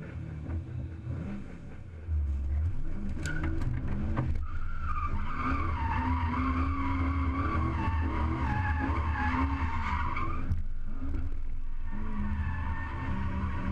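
Toyota Supra drift car's engine revving hard as it pulls away and drifts, the engine note rising and falling with the throttle. The tyres screech in a long continuous squeal for several seconds, ease off briefly, then squeal again near the end. It is heard close up from the car's side.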